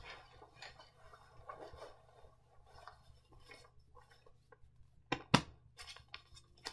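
A paper banknote crinkling and rustling as it is folded and handled, with two sharp snaps a little after five seconds.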